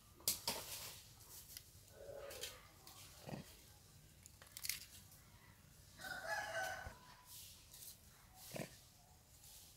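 Faint animal calls, a short one about two seconds in and a longer one about six seconds in, among scattered sharp clicks and rustles.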